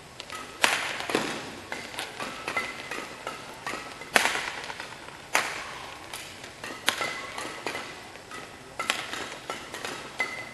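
Badminton doubles rally: rackets hitting the shuttlecock in sharp smacks, the hardest about a second in and again around four, five and seven seconds, echoing in the hall. Lighter hits and players' shoes squeaking and stepping on the court fill the gaps.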